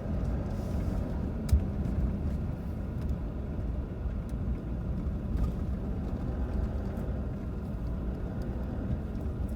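Steady low rumble of a car driving, with a single sharp knock about a second and a half in.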